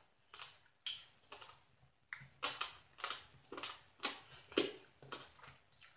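A person chewing a mouthful of papaya salad made from rehydrated dried papaya strands: a run of crisp, uneven crunches, a few each second, getting louder about two seconds in.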